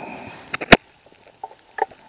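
Water trickling into a cut-open aluminum beer can, stopping about half a second in, followed by a sharp click and a few lighter taps as the can is handled.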